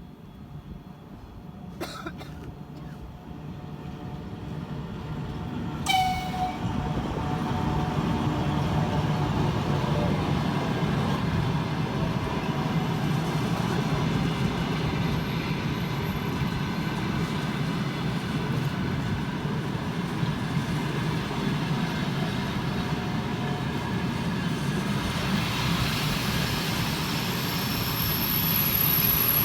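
A train approaching and passing, its rumble growing louder over the first several seconds and then holding steady. The locomotive sounds a short horn toot about six seconds in, and a high wheel squeal sets in near the end.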